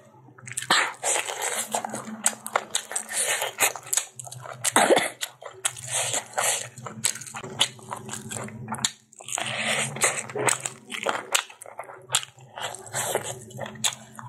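Close-miked eating: a person chewing and biting chicken, rice and long beans, with many sharp wet mouth clicks and smacks in an irregular run.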